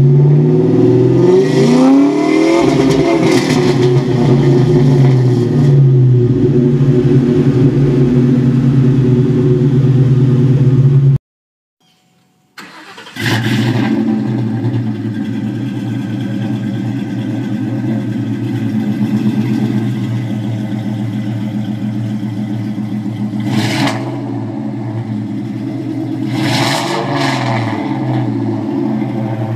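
Ford Mustang Bullitt 4.6-litre V8 exhaust: one rev that rises and falls back to idle near the start, then a steady idle. After about a second of silence, a second Bullitt idles, with two short blips of the throttle near the end.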